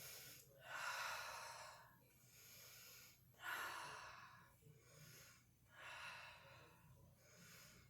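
A person breathing slowly and deeply through the microphone, a run of airy inhales and exhales about a second each, paced with a slow movement.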